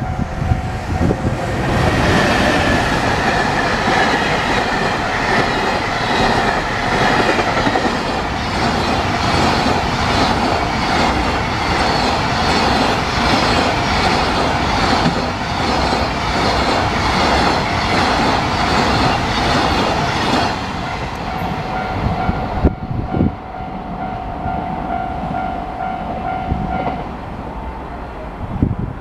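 JR Freight EF210 electric locomotive hauling a long freight train through a level crossing: a loud steady rumble with a rhythmic clatter of wheels over rail joints, which ends about twenty seconds in. Under it, the crossing's warning bell rings steadily; it carries on for a few seconds after the train has gone and stops near the end.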